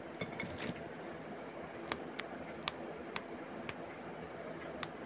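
Sparse, sharp light clicks, about six over three seconds, from vegetables and dishes being handled on a table, over a faint steady background hiss.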